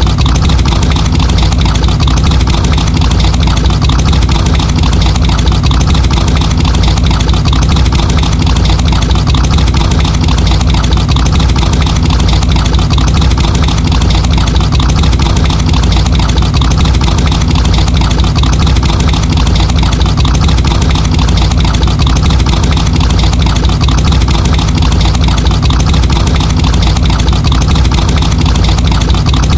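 Muscle car engine idling steadily and loudly, a low, even rumble with no revving.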